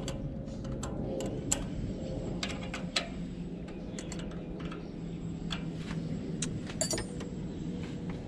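Irregular small clicks and light metallic taps of hand-work on an engine's individual throttle bodies and their fittings, over a steady low hum.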